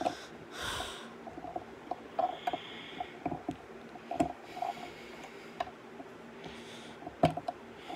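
LEGO rubber tires being pressed onto plastic rims: irregular small plastic clicks and knocks, with a few short hisses between them.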